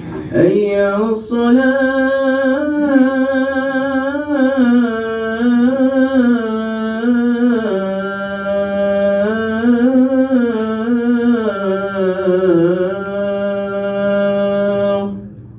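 A man's voice calling the adhan (Islamic call to prayer), holding one long, ornamented melismatic phrase whose pitch sways up and down, in a small room. It stops abruptly near the end.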